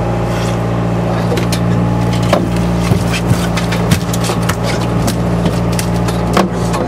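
Steady mechanical drone of a party fishing boat's machinery, with sharp knocks and clicks scattered across it, a handful of them louder than the rest.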